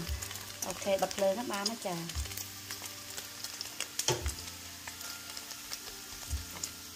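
Diced pork fat sizzling and crackling in hot oil in a wok as it renders and crisps, stirred with a wooden spoon.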